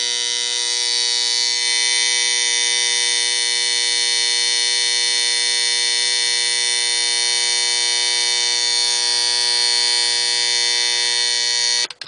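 Buzzer alarm of a vintage General Electric #7312-K wooden alarm clock going off: one loud, steady buzz that cuts off suddenly near the end.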